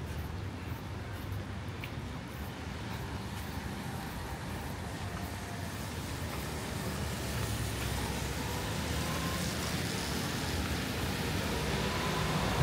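Rainy city street ambience: a steady hiss of rain and wet road with the low hum of a motor vehicle, growing slowly louder toward the end.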